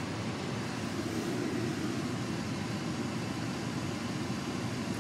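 Steady road and engine rumble of a car driving, heard inside the cabin.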